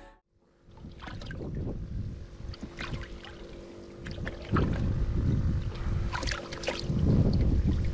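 Outdoor wind buffeting the microphone in uneven gusts, strongest about halfway through and again near the end, with a few light clicks and knocks over a faint steady hum.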